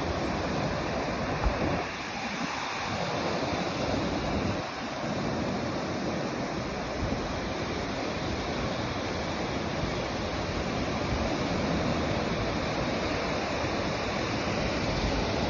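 Ocean surf breaking and washing up the beach, a steady rush, with some wind on the microphone.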